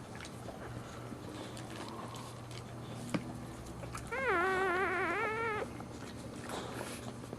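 Newborn Boxer puppy crying: one mewing cry about a second and a half long that wavers up and down in pitch, about four seconds in.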